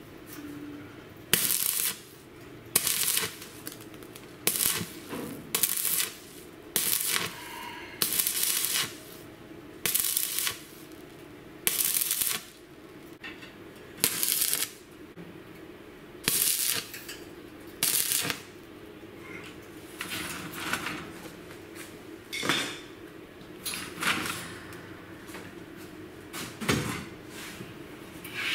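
Stick (shielded metal arc) welder tack-welding steel hinges: a run of short bursts of arc noise, each about half a second long, coming every one to two seconds with quiet gaps between.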